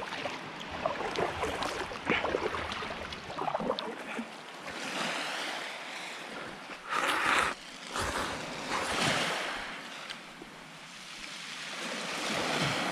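Sea water splashing and lapping around a small fishing kayak. The sound swells and fades every couple of seconds, with a louder splash about seven seconds in.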